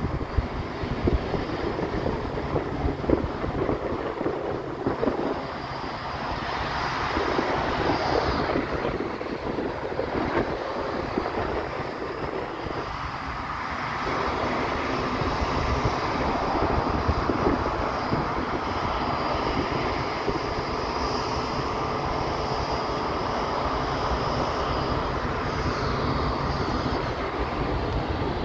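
An Emirates jet airliner's engines running at a distance: a steady rushing noise with a faint high whine, a little louder from about halfway through. Wind buffets the microphone.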